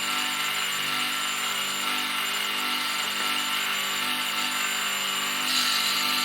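Proxxon mini milling machine running steadily, its motor and spindle giving a whine made of several steady tones with a slow pulsing underneath, while a small Dremel cutter works a metal part. A higher tone comes in about five and a half seconds in.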